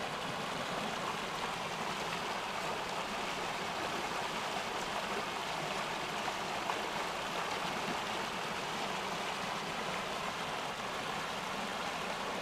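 Small stream rushing steadily over a shallow riffle, a continuous even splashing of water.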